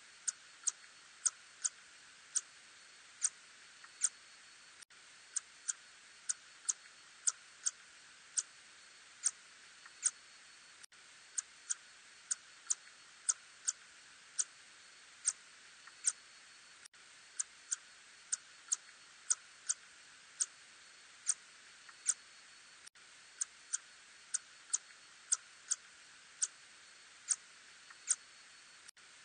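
Ussurian tube-nosed bat calls: an irregular series of short chirps, each a quick falling sweep, about one or two a second and sometimes bunched, over a steady hiss.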